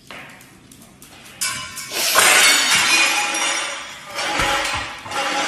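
Glass shattering: a loud crash about a second and a half in, followed by a couple of seconds of ringing, tinkling shards.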